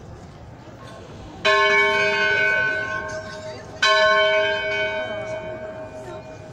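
Church bell struck twice, about two and a half seconds apart. Each stroke rings out with several clear tones and slowly dies away.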